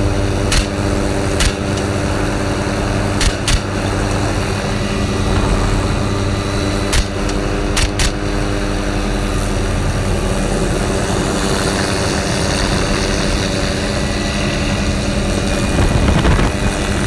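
Helicopter running steadily in flight, with about seven sharp AR-15 rifle shots in the first eight seconds, some in quick pairs.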